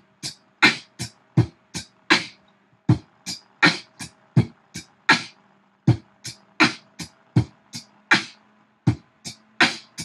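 Beatboxing into a handheld microphone: a steady 4/4 groove built from "B", "T" and "K" vocal percussion sounds, about three strokes a second. Deep bass-drum hits alternate with crisp hi-hat and snare clicks.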